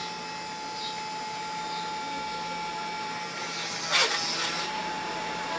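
Stepper motors of a home-built Arduino Mega CNC machine, running with a steady high whine. About four seconds in, a brief louder sweep falls and then rises in pitch as a motor slows and speeds up again.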